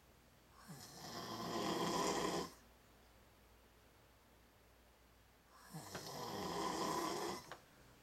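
A man snoring loudly in his sleep: two long snores, each about two seconds, swelling louder and then cutting off, about three seconds apart.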